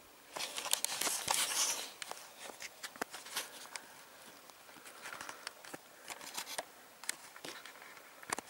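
Rustling and crackling with scattered sharp clicks, loudest and densest in the first two seconds and then in short bursts.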